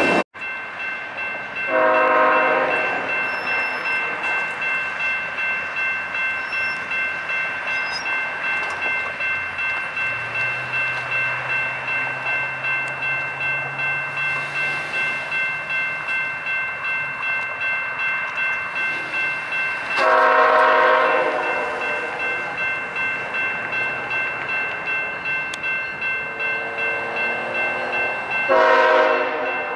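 Diesel locomotive horn sounding three blasts: one about two seconds in, a longer one about twenty seconds in, and another near the end. Under it, a bell rings steadily at about one and a half strikes a second.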